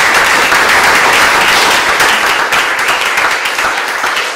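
Audience applauding, a dense mass of many hands clapping that begins to die down near the end.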